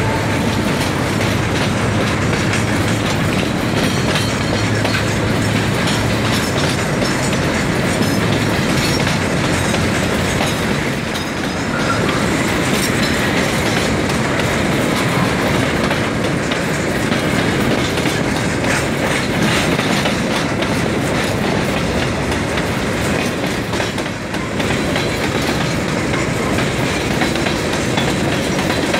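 A mixed freight train of container flatcars and tarp-covered wagons rolling steadily past, its wheels clicking over the rail joints.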